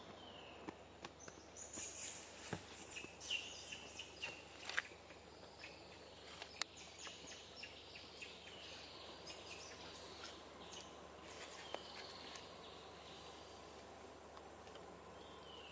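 Forest ambience: a steady, high insect buzz. Between about two and five seconds in there is a flurry of short, high chirps and squeaks with a few sharp clicks, then only scattered chirps.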